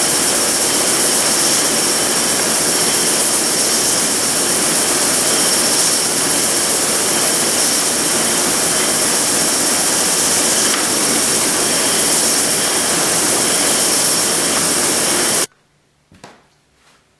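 Benchtop belt sander running steadily, a hardwood stretcher held flat against the moving abrasive belt. The noise cuts off abruptly about fifteen seconds in, leaving near quiet with a few faint knocks.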